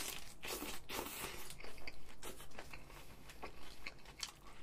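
Close-up bites and chewing of a No Brand Burger signature burger with crisp lettuce and raw onion. A quick run of crunches in the first second or so is followed by scattered crunchy chews.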